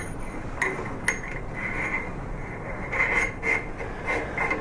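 A few light metallic clicks and rubbing as small parts, the barrel nut among them, are handled and fitted at an AR-15 upper receiver clamped in a bench vise.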